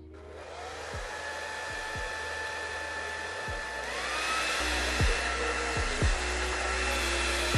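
Handheld hair dryer blowing, its motor spinning up at the start and stepping up to a higher pitch about four seconds in, heating the hairline of a lace-front wig to melt the lace. Background music with a low bass beat runs underneath.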